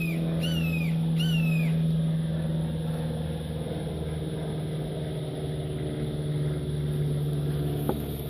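A steady low mechanical hum, like a motor or engine running, throughout. In the first two seconds a bird calls in short falling chirps, about two a second. A faint click comes near the end.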